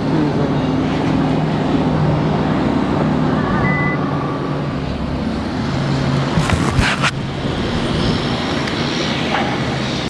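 Car engine running as the convertible, top down, pulls away and drives off, with engine hum and road and wind noise. There are a few brief knocks about six and a half seconds in.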